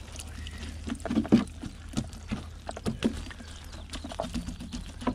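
Wet mesh whitebait net being handled, shaken and swept by hand to work the catch down into a container: irregular wet slaps, taps and patters of water, loudest about a second in, over a steady low rumble.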